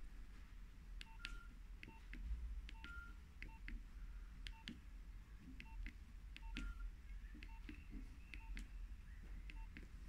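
Nokia 3100 mobile phone keypad being pressed over and over: each press gives a faint plastic click and a short electronic key beep, about one or two presses a second.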